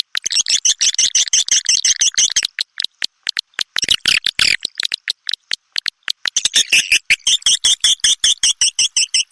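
White-nest swiftlet lure call: fast trains of sharp clicks, with three stretches of high, dense twittering. It is a call sound played to draw swiftlets into a bird house.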